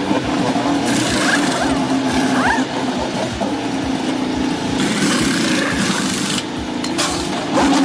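IndyCar pit stop: the car's engine idles steadily while pneumatic wheel guns run in three long rattling bursts on the wheel nuts during the tyre change.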